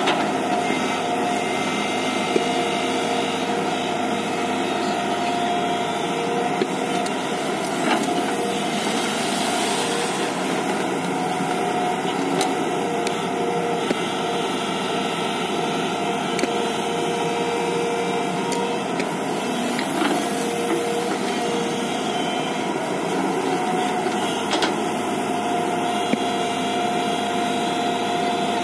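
JCB tracked excavator running steadily while its boom and bucket work in a sand pile, with a few short sharp clicks now and then.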